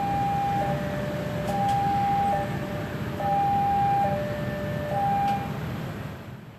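Railway level-crossing electronic warning alarm sounding a steady two-tone high–low pattern, each note just under a second long, over a low traffic rumble. The alarm stops about five seconds in, and everything fades out near the end.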